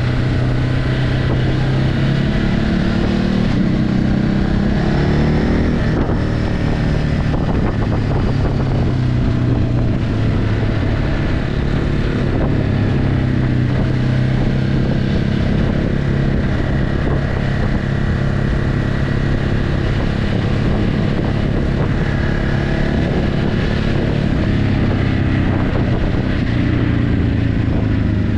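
Ducati Hypermotard 950's 937 cc L-twin engine through its stock exhaust, running under way. The revs rise from about two to six seconds in, then it runs steadier.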